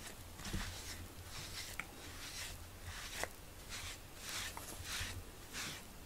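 Rubber grooming brush stroked through a cat's fur, a soft scratchy swish about twice a second.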